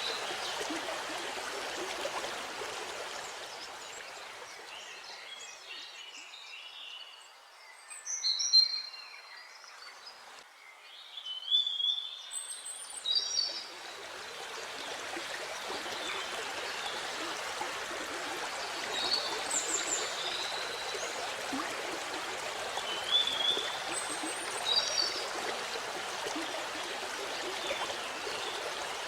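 Waterfall water rushing steadily, with birds chirping and calling over it. The water sound fades down for several seconds in the middle, leaving mostly birdsong, then swells back.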